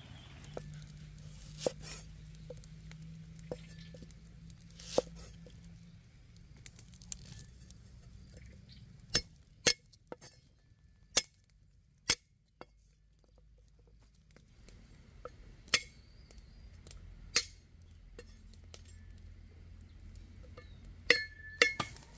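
Scattered, irregular clinks and knocks of cooking utensils and metal cookware during outdoor food preparation, some with a short metallic ring. Near the end a quick cluster of clinks leaves a brief ringing tone.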